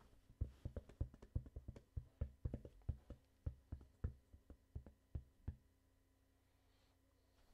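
A quick, irregular run of light knocks or taps, about five a second, which stop about five and a half seconds in.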